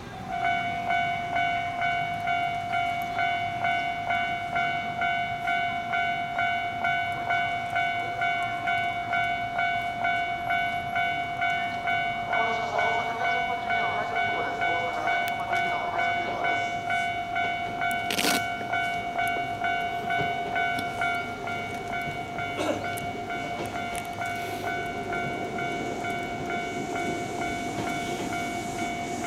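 Electronic railway warning bell ringing about twice a second, signalling an approaching train. Near the end, the approaching electric train's running noise rises under the bell.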